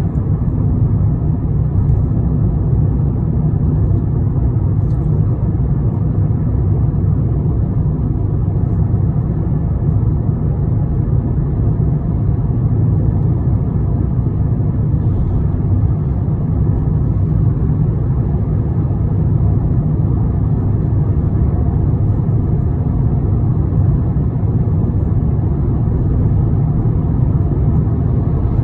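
Steady low rumble of a moving road vehicle, heard from inside as it drives along at an even speed.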